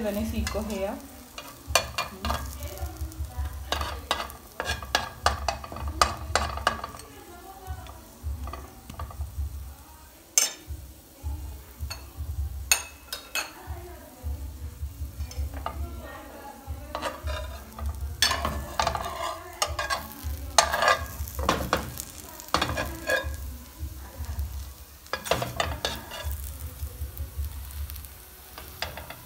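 Metal spatula scraping and clicking irregularly against a honeycomb-textured frying pan as a chocolate chip pancake fries, with the batter sizzling underneath.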